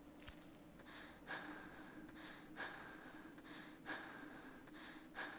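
Faint heavy breathing, a breath in and out about every second and a quarter, over a faint steady low hum.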